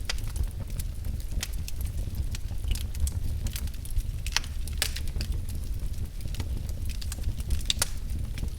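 Wood fire in a fireplace crackling, with frequent irregular sharp pops over a steady low rumble.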